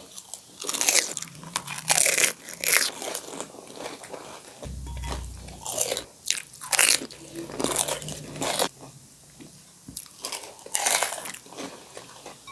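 Crisp, hollow pani puri shells crunching as they are bitten and chewed: about ten sharp, crunchy bites in a row.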